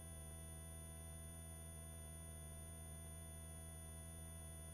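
Faint, steady electrical hum of several fixed tones on a helicopter's headset intercom line, with the voice-activated microphones closed between the pilot's remarks.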